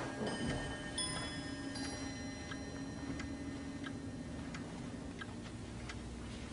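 Mechanical clock ticking steadily, about two ticks a second, over a low steady hum.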